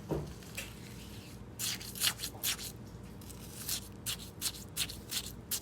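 A quick run of short rustling, scraping strokes, about two or three a second and unevenly spaced, starting about a second and a half in.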